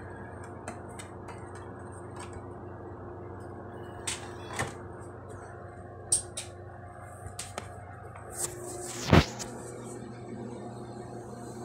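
Scattered clicks and knocks over a steady low hum, with one heavy thump about nine seconds in, as a Blu-ray player and disc are handled while the player loads.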